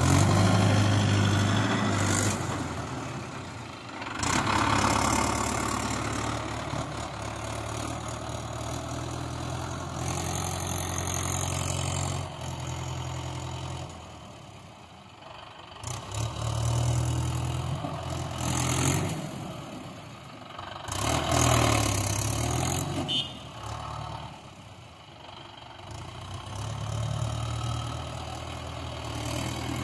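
Tractor diesel engine working under load as it drags a land leveler through loose soil. The engine note swells and eases repeatedly as the tractor pushes into and backs off the heaps.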